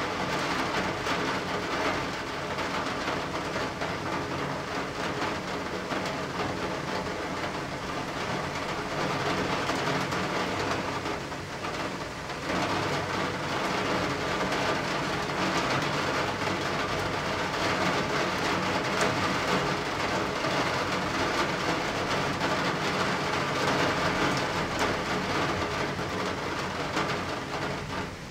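Steady rain heard through a closed window, an even hiss with a short dip in level about twelve seconds in.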